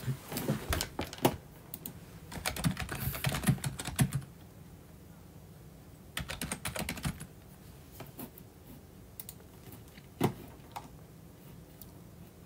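Typing on a computer keyboard in short runs of keystrokes, then a few single clicks near the end.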